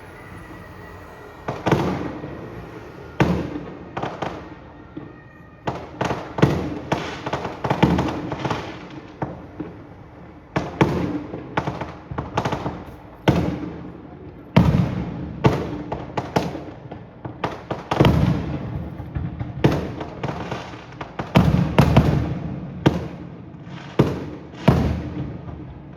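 Aerial fireworks show: shells bursting in quick, irregular succession, dozens of sharp bangs, each followed by an echoing rumble, some coming in tight clusters.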